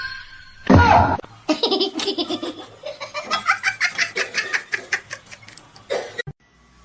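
A person laughing hard in a long run of rapid, repeated bursts, after a sudden loud noise about a second in. The laughter cuts off abruptly near the end.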